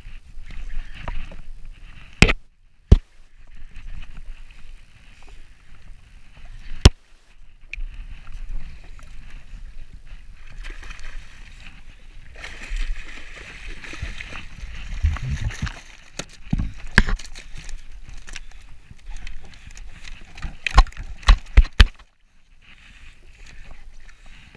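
Water slapping and sloshing against a jet ski's hull while a jigging rod and overhead reel are worked, with handling rattles and a few sharp knocks, and a quick run of sharp knocks near the end.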